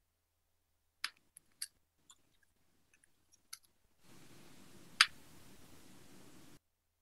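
Dead silence broken by a few faint scattered clicks, then about two and a half seconds of steady hiss from an open audio line with one sharp loud click in it, cutting off suddenly. The stream's sound is dropped out, so the presenter's voice is not heard.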